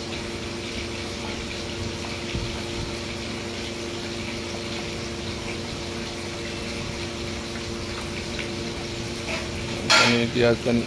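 Steady hum of a running motor with a rushing noise over it. A person's voice breaks in briefly near the end.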